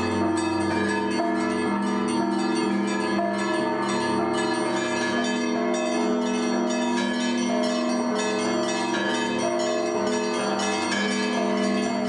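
Russian Orthodox chime: a monk ringing a set of small monastery belfry bells, many quick overlapping strikes ringing on without pause, calling the parishioners to the service.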